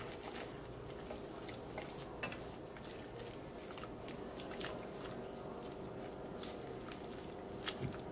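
Whisk stirring spinach and sun-dried tomatoes through a thick cream sauce in a skillet: soft wet squelching with irregular light clicks of the whisk against the pan.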